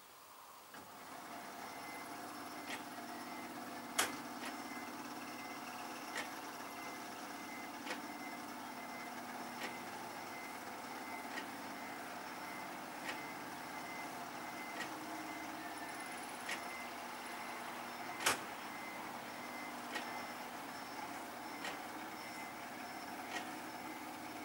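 Level crossing warning bell starting to ring about a second in and then ringing steadily to warn of an approaching train. Sharp clicks come through it about every second and a half to two seconds.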